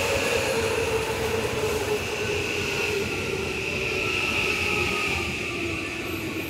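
Electric train at a station platform, a motor whine falling slowly in pitch as it slows, over a steady high-pitched ring from the wheels and rails.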